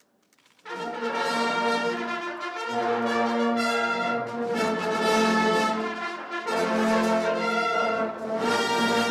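Brass ensemble playing a slow ceremonial piece of long held chords in several phrases, starting about half a second in after a moment of near silence.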